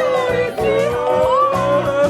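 Background music: a long held melody note that slowly bends in pitch, over a repeating bass line.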